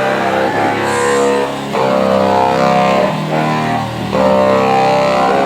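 Live band music: an instrumental passage of sustained chords over a low bass line, the chords changing every second or two.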